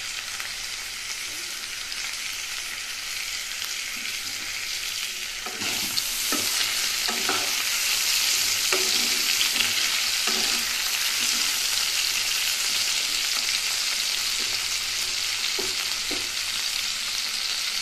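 Diced potatoes sizzling as they fry in hot oil in a non-stick kadai, with a wooden spatula scraping and turning them now and then. The sizzle grows louder about six seconds in.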